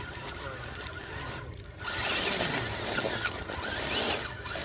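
Radio-controlled rock crawler running on its electric motor and drivetrain, a whine that rises and falls as the throttle changes. It gets much louder from about two seconds in and eases off near the end.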